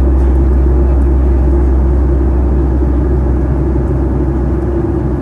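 Cabin noise of a Boeing 737-800 in flight, heard from a window seat beside the wing: a steady, deep drone of its CFM56-7B turbofan engines and the rush of air, easing slightly near the end.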